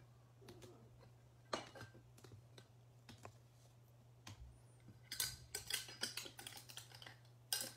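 Rigid plastic card holders and clear acrylic card stands clicking and clacking as they are picked up and stacked on a tabletop: a sharp click about a second and a half in, a quick flurry of clacks between about five and seven seconds, and another sharp click near the end.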